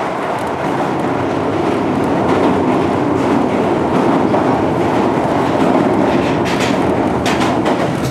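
Iyotetsu suburban-line electric train running at speed, heard from inside the car: a steady rolling rumble of wheels on rail, with a few sharp clacks near the end.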